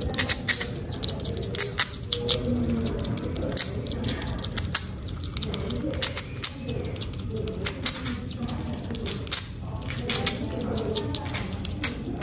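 A young squirrel gnawing on a piece of food held in its paws: quick, irregular, crisp crunching clicks, a few a second, over a steady low background hum.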